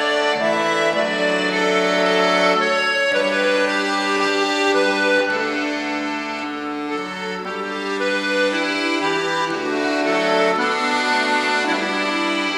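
Instrumental Norwegian folk tune carried by an accordion, a melody of held notes over sustained lower chords.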